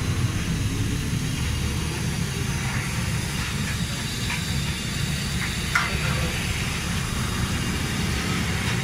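Steady low roar of the open fire burning under a frying wok, with a hiss over it. A short sharp click comes near the sixth second.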